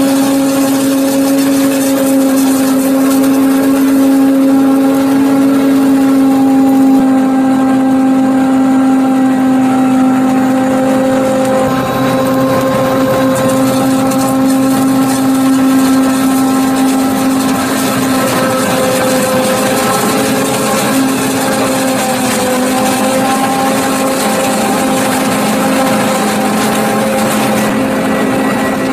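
New Holland FR500 forage harvester with a Kemper 460 plus maize header chopping corn, engine and chopping drum held at a steady working speed: a loud, steady drone.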